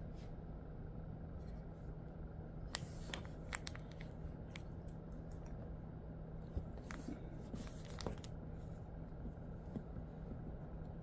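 Quiet room with a steady low hum and a handful of scattered faint clicks and ticks.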